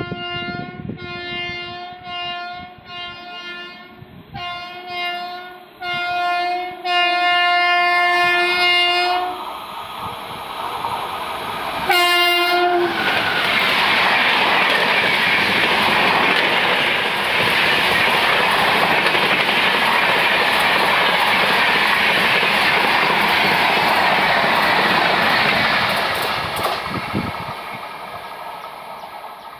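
WAP-5 electric locomotive's air horn sounding a string of short blasts, then longer ones, the last held about two seconds, with one more short blast about twelve seconds in. Then the express train passes at speed, a loud steady rush with wheel clatter on the rails, fading near the end as the last coaches draw away.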